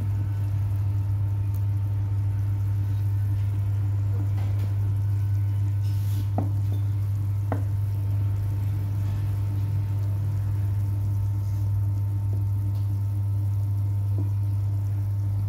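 Clay pot of soup simmering on the stove under a loud, steady low hum. Two faint clicks come about six and seven and a half seconds in.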